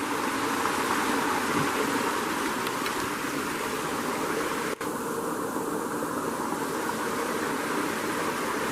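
Steady rushing noise of flowing river water, with a momentary break a little past halfway.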